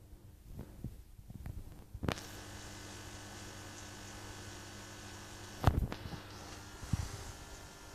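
Steady hum of aquarium air pumps and equipment, with a soft hiss of air-stone bubbling from about two seconds in. A few dull thumps break through, the loudest a little over halfway.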